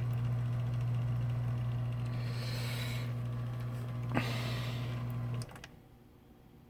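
Motor of a Smith-Corona 210 electric typewriter humming steadily while switched on, with a click about four seconds in and some brief rustling; the hum cuts off about five seconds in when the machine is switched off, leaving low room noise.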